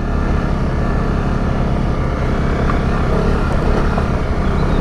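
Honda CRF250 Rally's single-cylinder engine running steadily while being ridden along a dirt trail.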